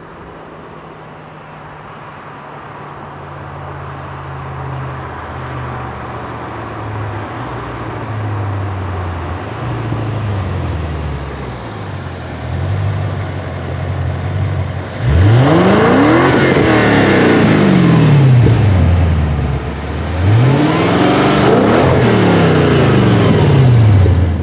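Audi RS6 Avant C7's twin-turbo V8 with a Milltek exhaust, running at a low rumble that slowly grows louder. Then it surges hard twice, about five seconds apart, the engine note climbing steeply and falling back each time.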